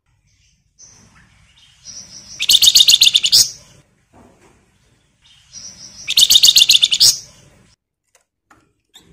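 Javan fulvetta (flamboyan, wergan Jawa) giving two rapid, rattling chatter trills, each about a second long and about three and a half seconds apart. Each trill is led in by a short, faint high note.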